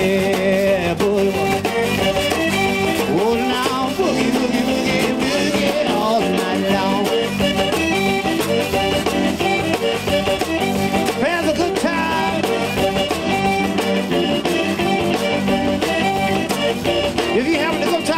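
Zydeco band music led by accordion with guitar, playing continuously.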